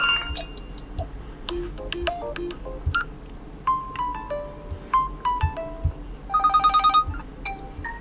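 Built-in ringtones of an Oppo Find X5 Pro previewed one after another through the phone's speaker, each short melody cut off after a second or so as the next one is tapped. Near the end, one plays a fast run of repeated beeps. Soft taps of a finger on the screen come in between.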